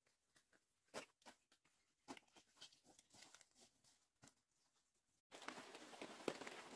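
Faint, scattered rustling, crackling and soft knocks of banana bunches and dry leaves being handled. About five seconds in, the sound switches abruptly to a louder, denser rustling and crackling in dry undergrowth.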